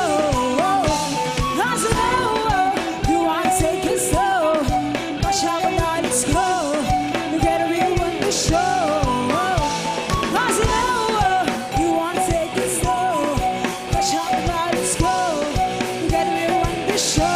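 Live rock band playing: drum kit keeping a steady beat with cymbal crashes, electric guitars, bass and keyboard, under a female lead vocal.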